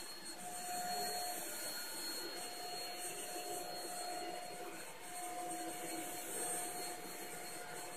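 Shark Rocket Ultra-Light HV382 corded stick vacuum running steadily: an even motor whine with a high, steady tone over the airflow noise.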